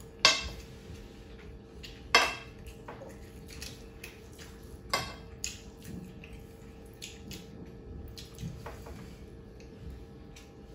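Metal spoons clinking and scraping against a large serving plate as rice is scooped, with several sharp clinks, the loudest near the start, about two seconds in and about five seconds in.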